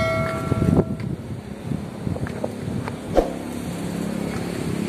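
A short ringing chime from a subscribe-button animation dies away about a second in. Then come sandal footsteps on concrete steps, a few sharp slaps with the loudest about three seconds in, over a steady low hum.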